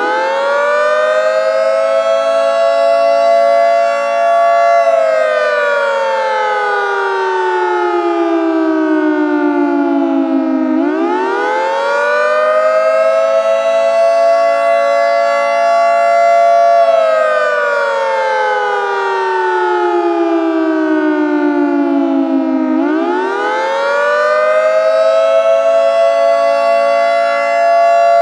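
Synthesized 2T22 two-tone siren winding up and down repeatedly. Each time it rises quickly and levels off, following an exponential curve like the spin-up of a series-wound or universal motor. It then holds its pitch for a second or two and glides slowly down over about six seconds before starting again.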